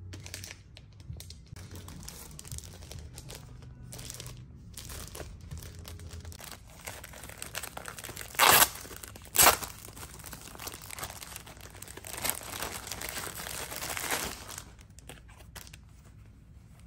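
Clear plastic packaging crinkling and rustling as it is handled and pulled open, with two short, loud rips near the middle. The crinkling dies down near the end.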